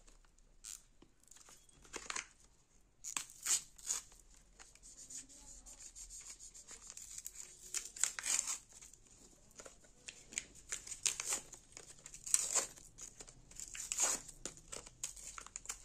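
Packaging of a new brush-on nail glue being torn open and crinkled, in irregular short rustles and rips.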